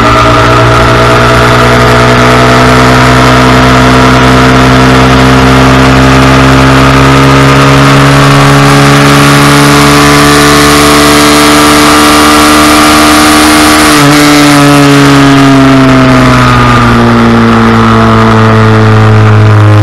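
Honda Cub 90's small four-stroke single-cylinder engine running hard on the track, heard from the bike itself, with wind rushing over the microphone. The engine note climbs slowly as the bike gathers speed, then drops sharply about two-thirds of the way through and falls away to a lower, steady note as the bike slows for a bend.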